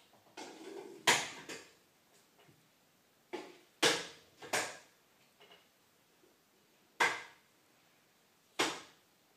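Magnetic two-sided window-cleaning brush drawn over a foamed glass pane, its rubber squeegee wiping the foam off. A series of short, sharp strokes at uneven intervals, each dying away quickly; the loudest come about a second in, around four seconds in, at seven seconds and near the end.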